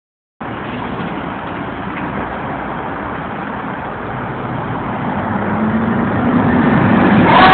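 Street traffic noise as an articulated city bus drives past close by, its engine and tyres getting louder through the second half. Right at the end a fire truck's siren starts to wail.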